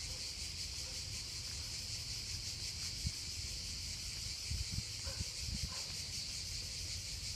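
A steady, high-pitched chorus of cicadas buzzing in the surrounding trees. A few low thumps land on the microphone about three seconds in and again around five seconds in.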